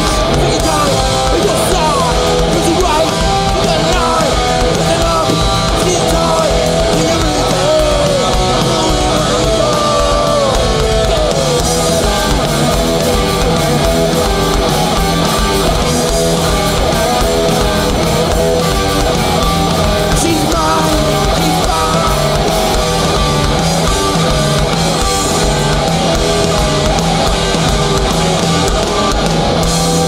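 Loud live crossover thrash music from a full band: distorted electric guitars, bass and drums playing steadily, with pitches gliding up and down over the top.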